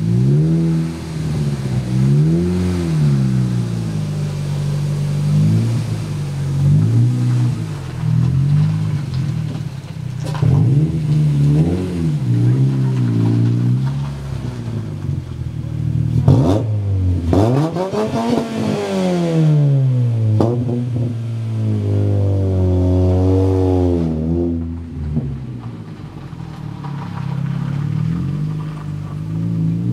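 Chevrolet Cobalt's engine being revved over and over, its pitch rising and falling with each blip, with one long high rev about two thirds of the way through. It is being run hard to burn Sea Foam engine treatment out of the intake, which is what throws the heavy white smoke. It is quieter in the last few seconds.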